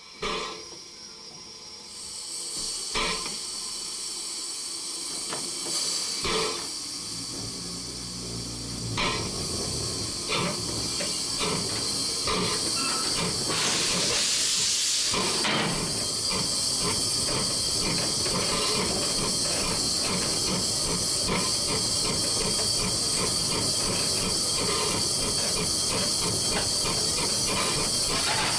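Steam hissing in the cab of a 1925 La Meuse steam locomotive, with a few scattered knocks and a loud burst of steam about halfway through. A quick regular beat runs through the second half as the hiss goes on.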